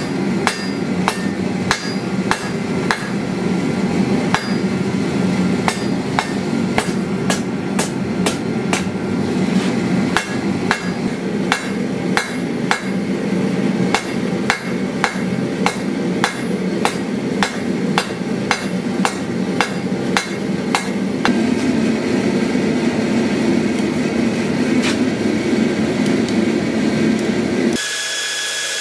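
Hand hammer striking a red-hot steel rod on an anvil, about two ringing blows a second over a steady low rumble. The blows thin out after about twenty seconds. Near the end the sound cuts to a belt grinder running.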